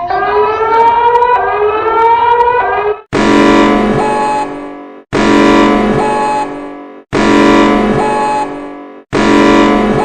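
Emergency alert alarm: a siren tone with its pitch rising for about three seconds, then a harsh blaring tone sounding four times, two seconds apart, each blast fading a little before a brief silent break.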